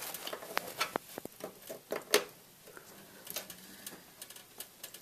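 Scattered small clicks and taps of plastic power cable connectors and wires being handled and fitted inside a computer case, the loudest a little after two seconds in.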